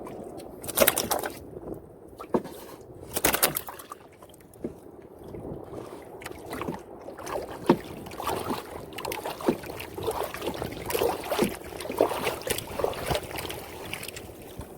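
Seawater splashing and sloshing, with two louder splashes in the first few seconds, then a run of short knocks and small splashes.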